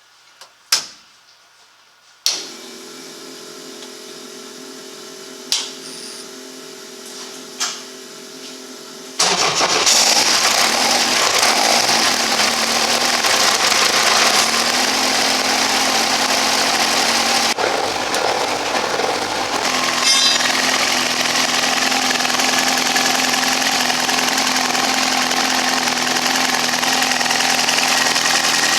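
First start of a Millington Diamond 2.5-litre naturally aspirated four-cylinder engine in a Ford Escort Mk2 rally car. A few clicks and a steady electric whir come first; the engine then fires suddenly about nine seconds in and settles into steady running.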